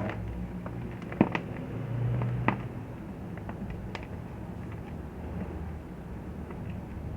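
Gym chalk being crushed and crumbled: scattered small crunches and crackles, with sharper snaps about a second in and again about two and a half seconds in.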